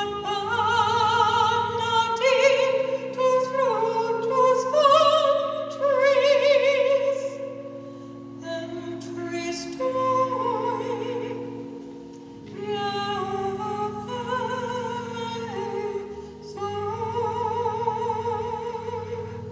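A solo singer with strong vibrato sings a slow sacred song in phrases a few seconds long, over sustained organ chords.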